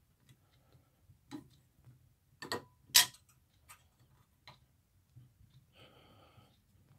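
Scattered light metal clicks of galvanized wire being twisted together with antique combination fencing pliers, the sharpest about three seconds in. A short scrape follows about six seconds in.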